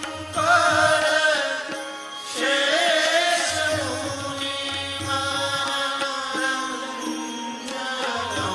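Devotional Hindu bhajan music: a wavering melody line over a steady drone and low bass notes.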